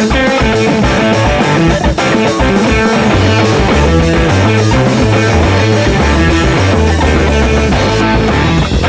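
Background rock music led by electric guitar, loud and steady with a driving beat.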